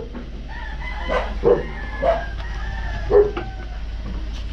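A dog barking a few times in short single barks, while a rooster crows once in a long, slightly falling call, over a steady low hum.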